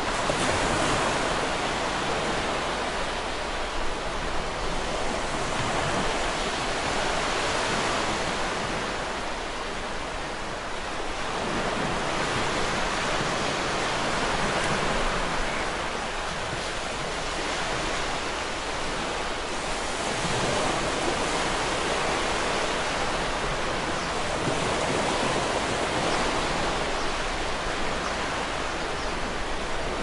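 Sea waves surging and washing in: a continuous hiss of surf that swells and eases every few seconds.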